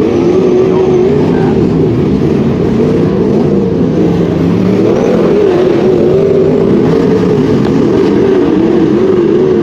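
Wingless sprint car V8 engines running hard on a dirt oval, the engine note wavering up and down continuously as the cars lap.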